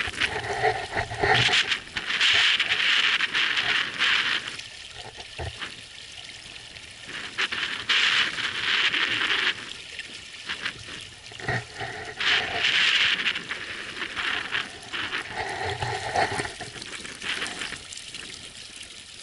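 Water rushing and splashing along the hull of a small inflatable tender as it motors across choppy sea, swelling in surges every few seconds as it meets the waves.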